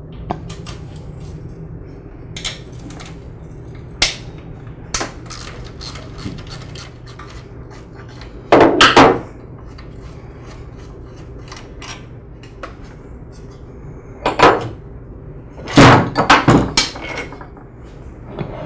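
Socket ratchet clicking as it works the mounting bolts of a pressure washer's pump and motor, with louder metal clanks and knocks about halfway through and again near the end.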